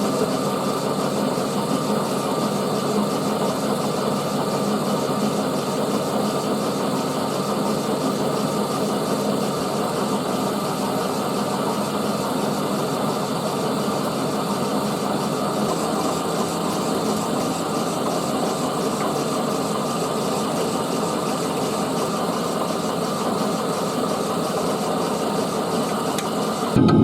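A workshop machine's motor running steadily, its tone changing slightly about sixteen seconds in.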